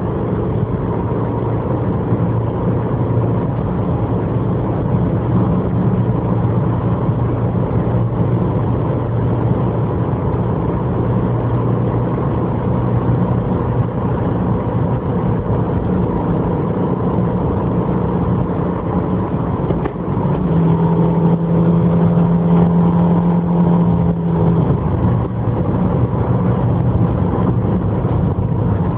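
Subaru Impreza's 1.5-litre naturally aspirated flat-four engine running under way, with tyre and road noise, heard inside the cabin. About twenty seconds in, the engine note shifts to a steady higher tone and grows slightly louder for a few seconds, then settles back.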